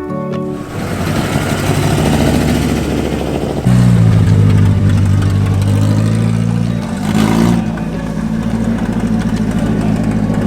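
Car engine running at idle; about three and a half seconds in it becomes abruptly louder and deeper, with a brief blip of revs a few seconds later before settling back to a steady idle.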